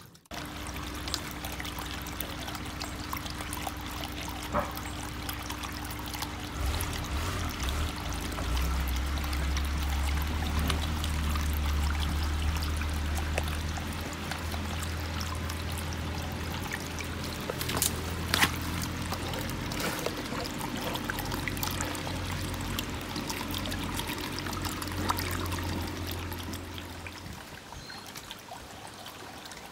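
Small submersible aquarium pump (Eheim Compact On 600) working underwater, its outlet stirring the surface into a steady burbling trickle; the flow is weak, only faintly circulating the water. A low rumble joins through the middle part.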